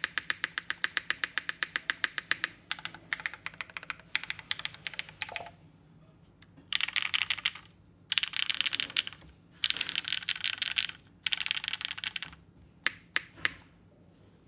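Typing on a Rose TKL custom mechanical keyboard with a full aluminium plate, BCP switches and GMK keycaps: a quick run of separate keystrokes, then four bursts of very fast keypresses about a second each, and a few single keystrokes near the end.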